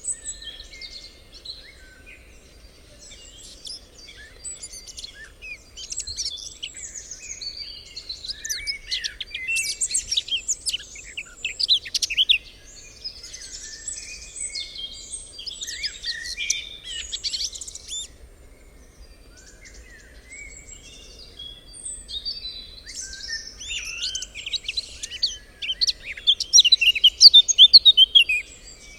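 Many birds singing and chirping in a forest dawn-chorus-like ambience, overlapping trills and calls that swell and fade, loudest near the end.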